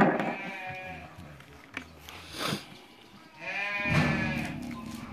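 Livestock bleating: two drawn-out, wavering calls, one at the very start and a louder one about three and a half seconds in.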